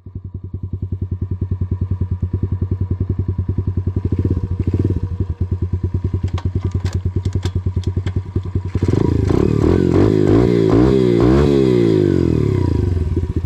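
KAYO TD125 dirt bike's 125cc four-stroke engine idling with an even, rapid beat, about ten pulses a second. From about nine seconds in it is revved up and down several times, getting louder, while the bike stays standing.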